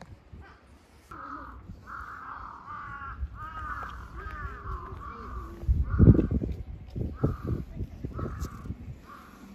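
A crow cawing over and over, short caws in a steady series starting about a second in. Around the middle come a few loud, low thumps and rustles close to the microphone.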